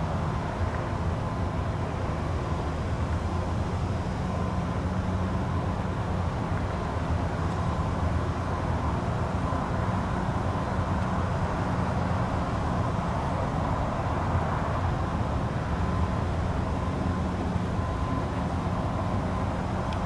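Steady low engine rumble with a faint high whine, holding an even level throughout.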